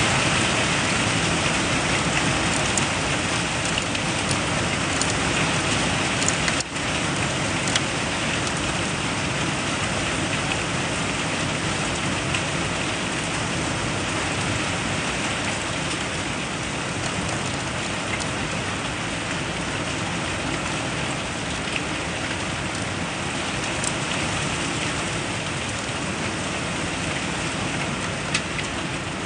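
Rain falling steadily in a severe thunderstorm, spattering on the window glass.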